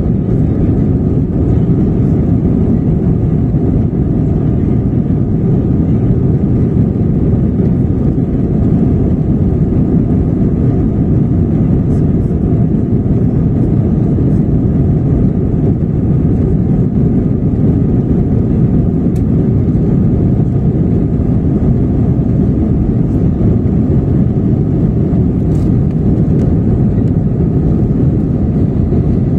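Steady cabin roar of a jet airliner climbing after takeoff, heard from a window seat over the wing: a deep, even rush of engine noise and airflow with a faint steady hum higher up.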